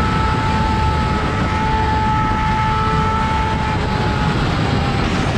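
Yamaha R6 inline-four sportbike running through an Akrapovič full-system exhaust at a steady cruising speed, its engine note holding even, with heavy wind rush underneath.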